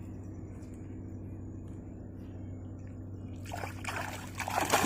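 Water splashing and trickling, starting about three and a half seconds in and getting louder, over a steady low hum.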